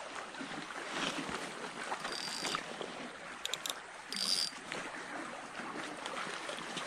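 Steady rush of a shallow, gravel-bed stream flowing, with two brief higher whirs about two and four seconds in.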